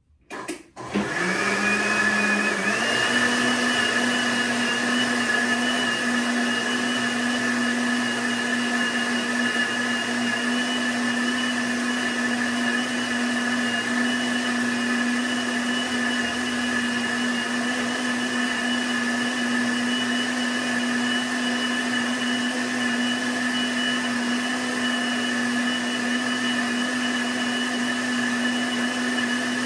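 Electric kitchen blender blending a liquid ice-pop mixture with pineapple flavour powder: after a couple of knocks, the motor starts about a second in, rises in pitch for about two seconds, then runs steadily.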